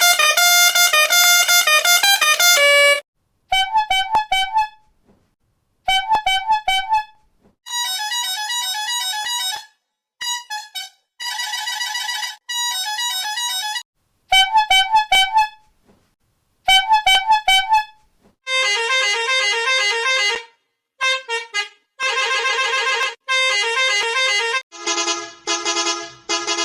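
A string of edited bus horn sound variations: short honk clips at different pitches, many broken into quick repeated honks, one after another with brief silent gaps between them. The first few seconds are a denser run of stepping notes.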